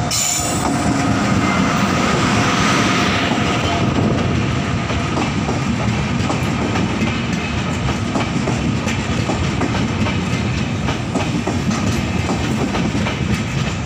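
Passenger train of LHB coaches, hauled by an Indian Railways WAP-class electric locomotive, running past close by along a platform, with a steady rumble and continual clicking of wheels over rail joints.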